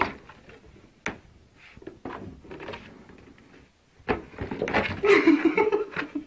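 A cat moving in a cardboard box on carpet. There are a few sharp knocks of cardboard in the first two seconds, then louder rustling and scraping of the box from about four seconds in.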